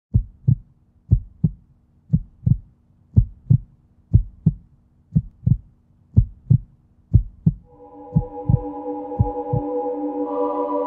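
Heartbeat sound effect: pairs of low thumps (lub-dub) about once a second, ten pairs in all, growing weaker near the end as a sustained ambient synth chord swells in from about eight seconds in.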